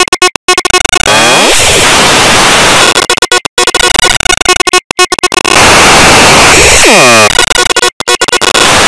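Cartoon soundtrack run through heavy distortion effects: loud, harsh, clipped noise with music buried in it, broken several times by sudden stuttering cut-outs.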